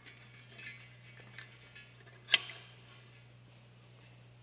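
Steel clamp-kit hardware knocking against the steel wheel as it is handled on the milling table: a few faint taps and one sharp metallic clink a little past halfway, over a low steady hum.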